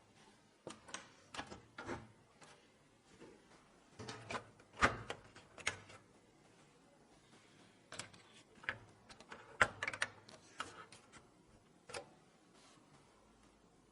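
Irregular small clicks, taps and knocks of computer parts being handled and fitted together, with a couple of louder knocks about five and ten seconds in.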